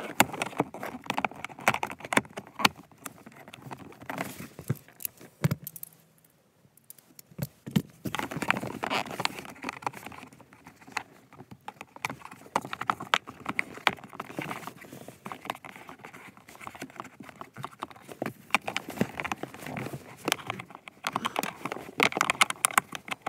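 Hand ratchet clicking in irregular runs, with the socket and tools clinking against metal, as a bolt on a blower motor housing is worked out. The clicking stops briefly about six seconds in, then carries on.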